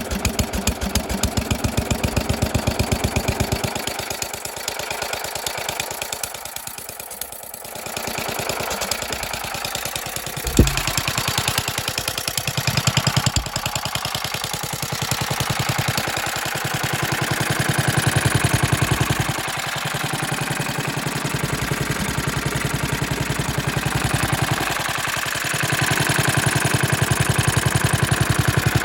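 Petter PA1K single-cylinder stationary engine, freshly restarted while already hot, running with a steady even beat. The level dips for a few seconds near the start and then picks back up, with one sharp knock about ten seconds in.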